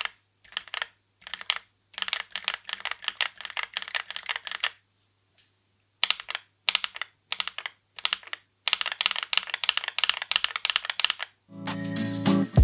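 Typing on a Kono 67 mechanical keyboard: quick runs of clacking keystrokes, with a break of about a second partway through. Music comes in near the end.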